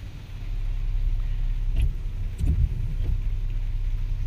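Car and traffic noise heard from inside a closed car on a wet road: a low engine and road rumble that swells about half a second in, with a couple of dull thumps around two seconds in.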